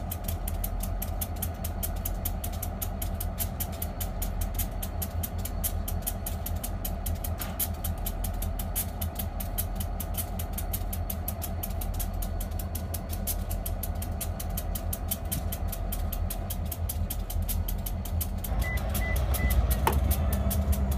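Diesel locomotive engine running with a steady low drone as the train approaches slowly. The engine grows louder about two seconds before the end.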